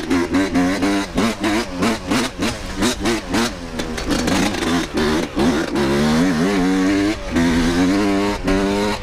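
Dirt bike engine being ridden, the revs rising and falling with the throttle: choppy on-off blips in the first half, then longer, steadier pulls with the pitch climbing and dropping.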